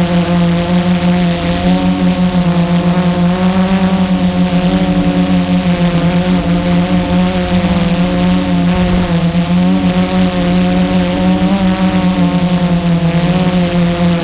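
Blade 350 QX2 quadcopter's four brushless motors and propellers buzzing steadily in flight, heard close from on board, the pitch wavering slightly as the motors adjust speed.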